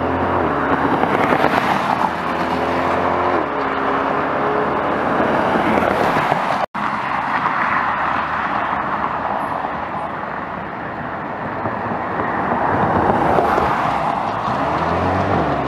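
Mid-engine Chevrolet Corvette prototype accelerating hard, its engine note climbing in pitch several times over a steady rush of tyre and wind noise. The sound cuts out for an instant about seven seconds in.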